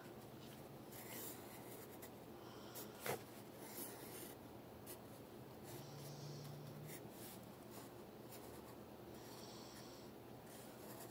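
Pencil drawing on paper: faint, intermittent scratching strokes, with one short light tap about three seconds in.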